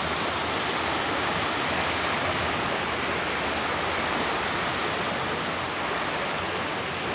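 Steady, even rushing noise that does not rise or fall, like sea surf or wind outdoors.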